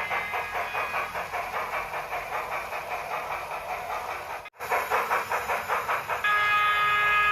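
Sound effects of a Union Pacific Big Boy steam locomotive model: rapid, rhythmic exhaust chuffs, broken once by a brief dropout, then a steady multi-tone steam whistle that starts near the end and is still sounding at the close.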